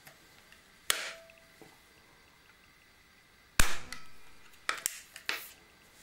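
Webley Nemesis single-stroke pneumatic air pistol being worked: a sharp metallic clack with a brief ring about a second in, then a loud sharp crack of the pistol discharging past halfway, followed by a quick run of clicks and clacks as the cocking lever is swung open again.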